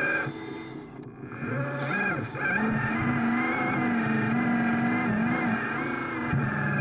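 Radio-controlled construction model running, a steady motor whine with held tones that shift in pitch now and then, dipping briefly about a second in.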